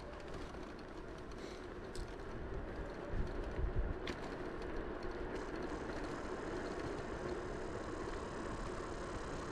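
A steady mechanical hum, like a vehicle motor running, with low gusts of wind buffeting the microphone about three to four seconds in.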